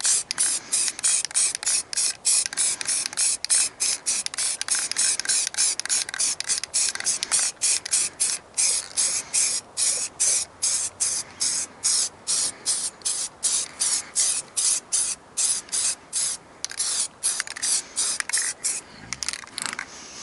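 Aerosol spray paint can spraying in short, quick bursts, about two or three hisses a second, as gun parts are coated tan.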